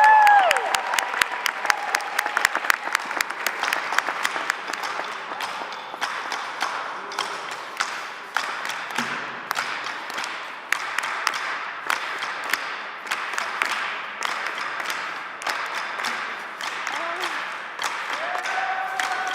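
Audience applauding, dense clapping that thins a little after the first few seconds, with a voice calling out near the end.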